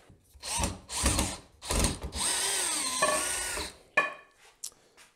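Power drill run in short trigger bursts, then a longer run of about a second and a half with its motor pitch wavering, as screws are backed out to take apart wooden benchwork. Two sharp clicks near the end.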